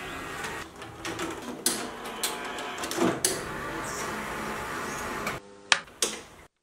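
Videocassette deck's tape mechanism running, a steady whirr with scattered clicks and clunks. It cuts off a little over five seconds in, followed by two sharp clicks of a deck's transport button being pressed.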